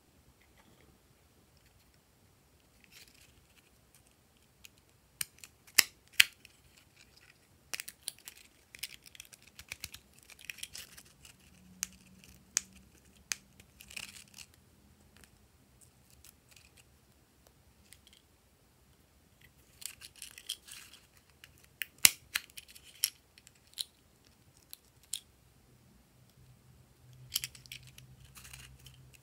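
Sharp plastic clicks and snaps with light rustling as small handheld plastic craft punches are handled and pressed, in scattered bursts with a few much louder clicks.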